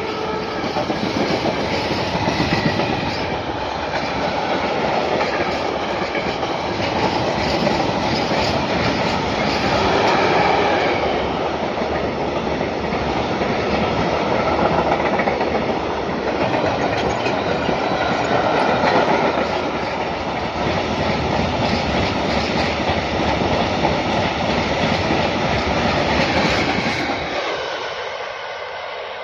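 Freight train of open wagons and tank wagons rolling past close by, a steady rumble of wheels clattering over the rail joints. It fades away near the end as the last wagons pull off.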